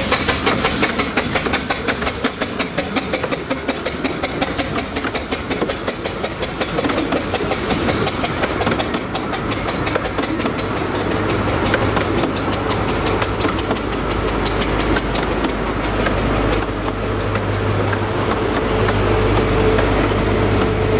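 Carriages of a 15-inch-gauge steam train rolling slowly past, with a steady run of clicks as the wheels cross the rail joints. From about two-thirds of the way in, a deeper rumble and a steady tone build beneath the clicking as a second steam locomotive draws near.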